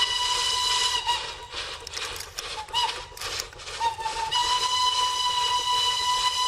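Steam locomotive whistle blowing a long, steady high note. About a second in it breaks up and wavers in pitch for roughly three seconds, then sounds steadily again.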